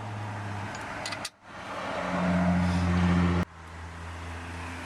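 Power driver's motor running in bursts as it drives in the rear seat's mounting bolts: a steady hum that swells louder and cuts off sharply about three and a half seconds in.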